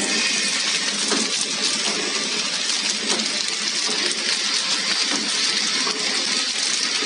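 Automatic film-wrapping packing machine running as it wraps stainless-steel scourers: a steady mechanical hiss with a few faint knocks from its feed and sealing parts.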